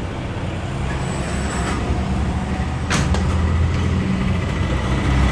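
Steady low hum of a running engine, growing slightly louder, with one sharp click about three seconds in.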